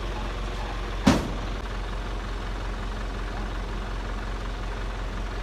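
Truck engine running steadily at a low idle, with one sharp knock about a second in.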